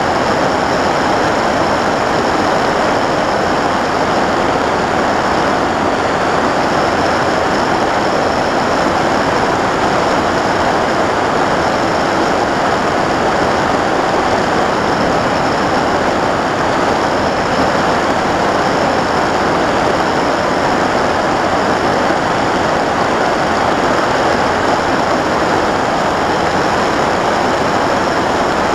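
Sky Cruiser 2400 radio-controlled plane in flight: a steady rush of airflow with its motor and propeller running at an even cruise, heard from the camera mounted on the plane.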